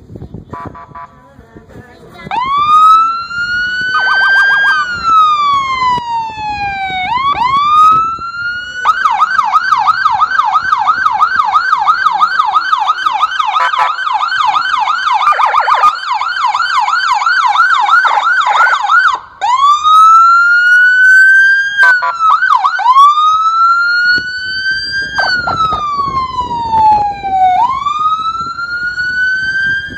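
Police vehicle siren, loud, starting about two seconds in: slow rising and falling wail, switching to a rapid yelp for about ten seconds, then back to the slow wail.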